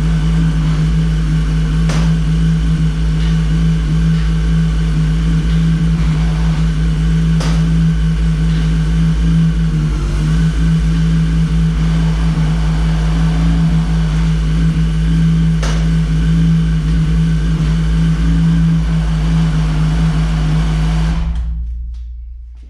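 Yamaha R1 (RN12) 998 cc inline-four engine idling steadily just after starting, with a few faint clicks over it. The sound fades out near the end.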